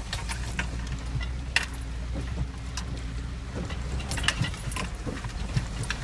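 GMC Sierra Z71 pickup's 5.3-litre V8 running low and steady while driving over rough ground, with scattered clicks and rattles from the jostled truck.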